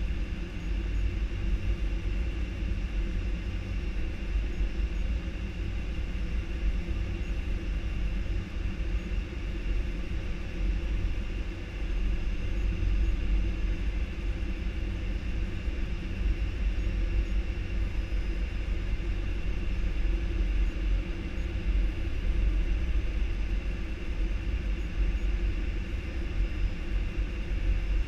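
Steady cockpit noise of an Airbus A319 airliner on approach: a constant low rumble and rush of air, with a faint steady high tone above it.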